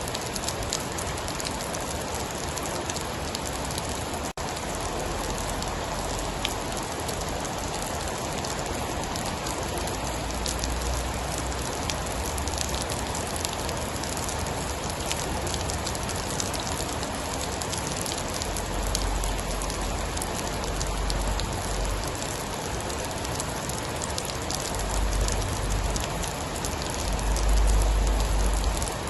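Steady heavy rain, a dense hiss scattered with the ticks of individual drops. Deep low rumbles swell in and out several times, the strongest near the end.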